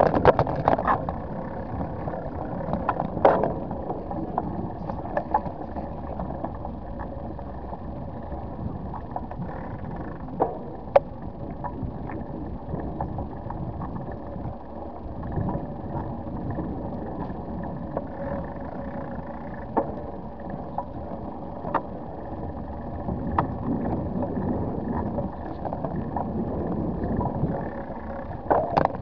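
Ride noise of a bicycle rolling over asphalt and paving, heard through a camera mounted on it: a steady rumble of the tyres with a faint steady whine underneath, and a few sharp knocks from bumps.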